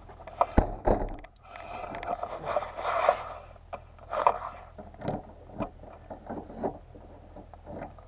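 SUV rear liftgate swung shut with two heavy thumps under a second in, followed by scraping and clicks as it is handled. Its bent latch does not catch, so it will not stay latched.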